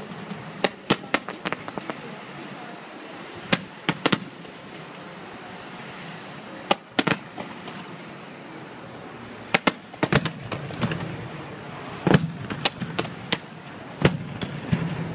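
Fireworks going off: sharp bangs and cracks from rockets and shells at irregular intervals over a steady background hiss, with the densest run of bangs from about ten seconds in to near the end.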